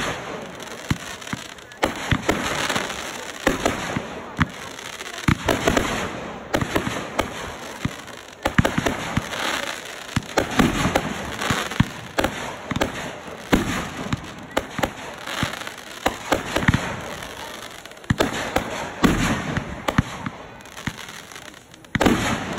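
Consumer fireworks going off: an irregular, continuous run of sharp bangs and crackles.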